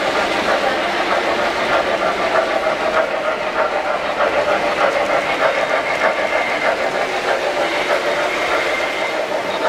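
3-rail O-scale model freight train rolling past, its wheels clicking in a quick, even rhythm over the track joints, over a steady hum. The clicking fades near the end as the last cars go by.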